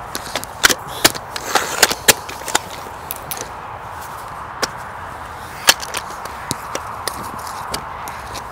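Vevor telescopic aluminium ladder being extended section by section, each segment sliding out and snapping into its latch with a sharp metallic click. The clicks come in a quick run at first, then one at a time every second or so.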